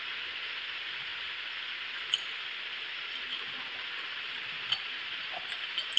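Steady hiss with a few light clicks, about two seconds in, near five seconds and near the end, as small wires and a plastic LED light are handled.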